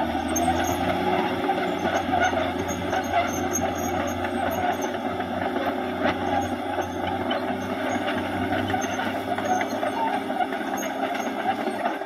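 Caterpillar D6R XL crawler bulldozer's diesel engine running steadily as the dozer works across a slope, with intermittent high squeaks and clinks from its track running gear.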